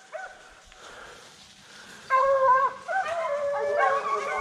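Deer hounds baying in long, held howls, starting about two seconds in, with several dogs' voices overlapping at different pitches.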